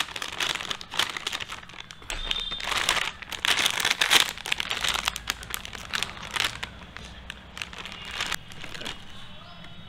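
Plastic snack packet crinkling and crackling as it is cut open with scissors and pulled apart by hand, loudest a few seconds in and dying down near the end.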